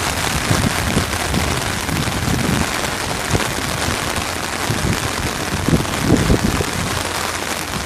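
Steady rain pouring down, an even hiss with some low irregular rumbles underneath.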